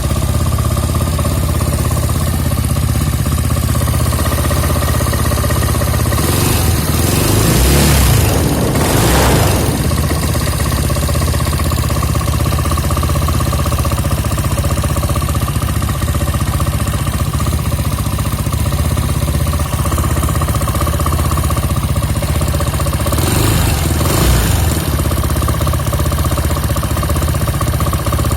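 Scooter engine running steadily with an abnormal noise from its fan, which appeared after the CVT drive parts were replaced. A louder rushing swell comes twice, about a third of the way in and again near the end.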